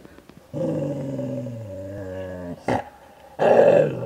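A dog growling over a piece of food it is guarding: one long, low growl of about two seconds, a short click, then a louder, rougher growl near the end.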